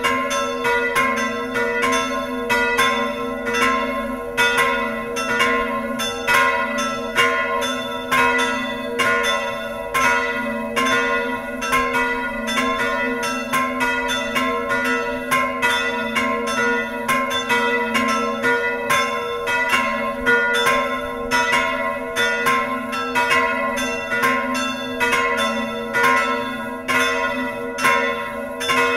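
Several church bells ringing together in a continuous peal, their strikes overlapping several times a second over a lingering hum.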